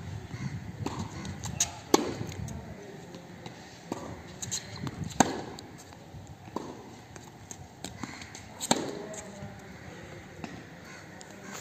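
Tennis ball struck by racquets in a hard-court rally: sharp pops of the ball, the three loudest about three and a half seconds apart, with fainter hits and bounces between them.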